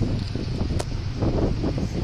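Wind buffeting the microphone: a steady low rumble that rises and falls with the gusts.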